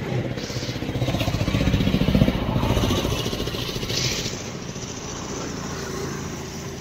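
A motor vehicle passing close by on the road: its engine sound builds to a peak about two seconds in, then slowly fades away.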